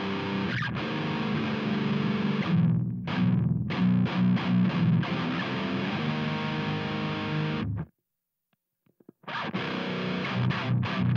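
Heavily distorted seven-string electric guitar riffing through a Kemper profile of a Mesa/Boogie Dual Rectifier, with the overdrive pedal off. It stops dead about eight seconds in, and after a second and a half of silence the riff starts again with the Blackhawk Morgul Drive overdrive pedal switched on as a boost in front of the amp.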